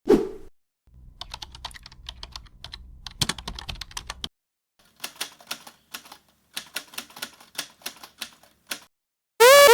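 Computer keyboard typing as a sound effect, in two runs of irregular key clicks, the first over a low rumble, after a short loud thud right at the start. Near the end a loud electronic ringing tone of quick rising chirps begins.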